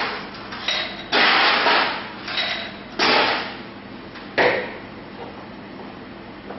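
Glassware and bar tools being handled while a cocktail is made: several loud clattering bursts, ending in a sharp knock about four and a half seconds in.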